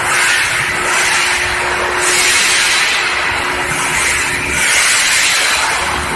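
Loud, steady machinery noise from an electric steel-heating furnace line, swelling and easing about every two and a half seconds, with a faint steady hum underneath.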